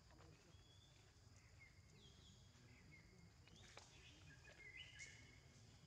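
Near silence: faint outdoor ambience with a low rumble and a few faint, short, high-pitched calls, the loudest about five seconds in.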